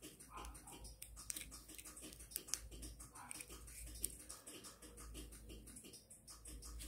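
Faint, irregular clicks and ticks, several a second at uneven intervals, over a low rumble.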